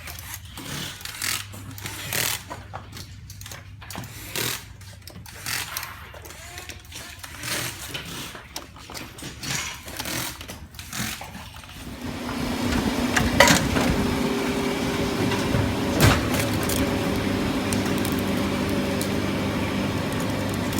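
Scattered clicks and knocks over a low hum, then about twelve seconds in a steady mechanical hum with a few held tones sets in, broken by two sharp clicks.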